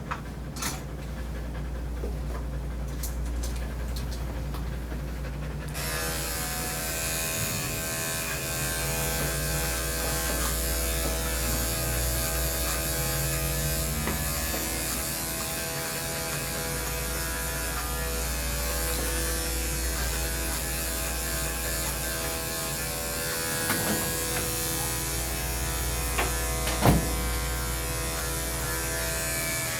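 Electric dog-grooming clippers switch on about six seconds in and run steadily with a buzzing hum, over a low background bass hum. A sharp click comes near the end.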